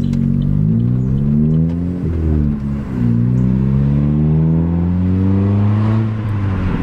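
Chevrolet Cruze's engine heard from inside the cabin while accelerating, its pitch climbing and dropping back at gear changes, with one long steady climb in the middle.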